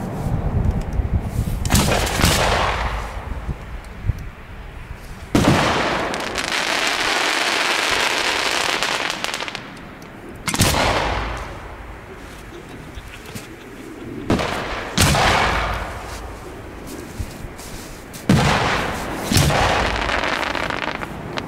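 Aerial firework shells bursting overhead: about seven loud bangs a few seconds apart, each followed by a fading rumble, with a hiss lasting about four seconds after the second bang.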